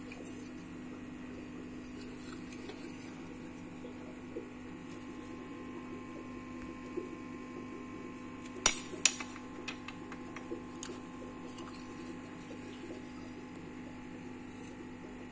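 Aquarium pump humming steadily, with a few sharp clicks about halfway through, the two loudest close together.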